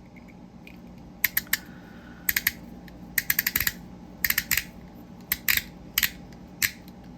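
Black Mirror Designs Dial fidget toy being turned, its rotating ring snapping through detents: sharp clicks in quick clusters of two to five, with short pauses between.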